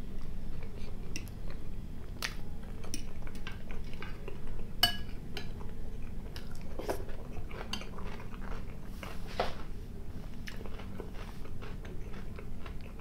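Metal fork clinking and scraping against a plate and a glass salad bowl, with one sharper ringing clink about five seconds in, amid close-up chewing of a mouthful of food.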